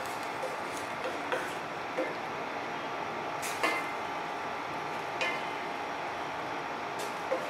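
Wooden spatula stirring squid in a stainless steel pan, scraping and knocking against the metal every second or so, the loudest knock about three and a half seconds in, over a steady hiss of the pan cooking.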